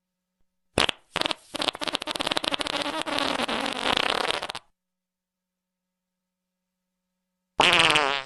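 Fart sounds: two short blasts about a second in, then a long, fast-rattling sputtering fart lasting about three seconds. After a pause of about three seconds, a pitched fart with a falling tone starts near the end.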